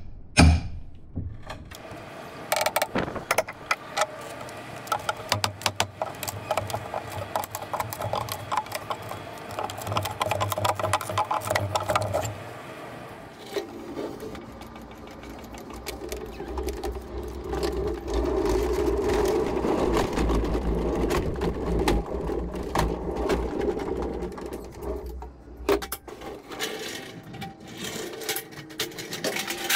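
Sharp knocks and wooden clatter as a steel pry bar levers the feet off a heavy timber pallet. About halfway through, a Climbrite hand pallet jack carrying the pallet rolls across concrete, its wheels rumbling and rattling steadily for about ten seconds.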